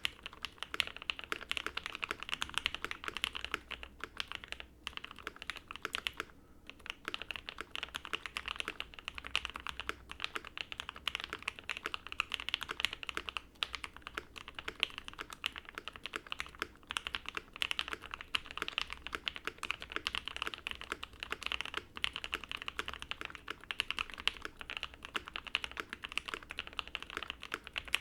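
Continuous fast typing on a custom OwLabs Jelly Epoch mechanical keyboard with lubed Banana Split linear switches on a POM plate, fully foamed, with GMK keycaps: a steady stream of smooth, muted key clacks. Typing pauses briefly about six and a half seconds in.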